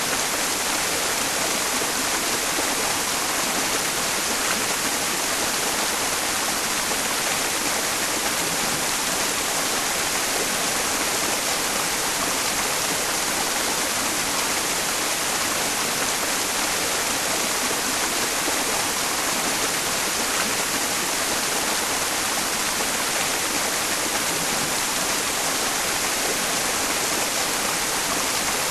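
Mountain stream rushing steadily, blended with white noise into an even, unbroken hiss.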